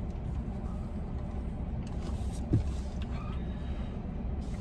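Steady low rumble of a car heard from inside the cabin, with a brief low thump about halfway through.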